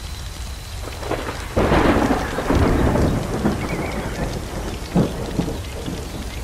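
A thunderclap breaks in about one and a half seconds in and rolls on for a couple of seconds, with a shorter sharp crack about five seconds in, over a steady crackling background.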